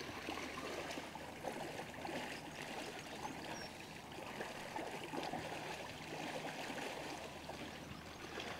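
Low, steady water ambience: an even rushing hiss scattered with faint small clicks and ticks.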